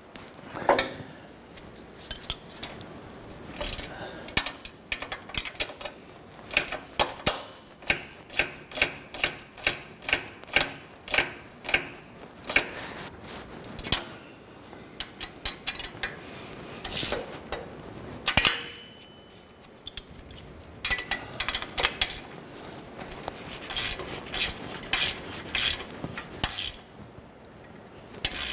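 Socket ratchet clicking in quick runs of sharp ticks, with the clink of a wrench on metal, as the exhaust flange bolts of a rear catalytic converter get a final tightening.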